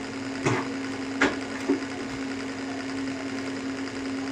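A steady low hum, with three short clinks of a metal ladle against a metal kadai in the first two seconds.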